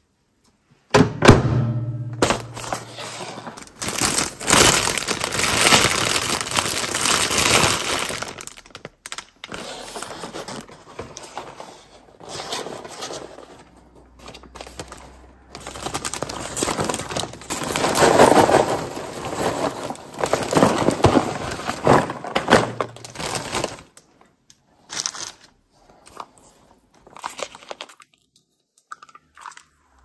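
A sharp click about a second in, then a clear plastic bag crinkling loudly as it is shaken open and handled, with popped popcorn rustling into it, in long stretches with pauses.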